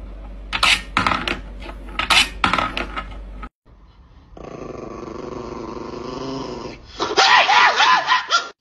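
A few sharp clicks and rattles from a kitten batting a wood-and-wire toy. Then a Chihuahua growls steadily for about two seconds. Near the end it breaks into a loud burst of snarling and snapping.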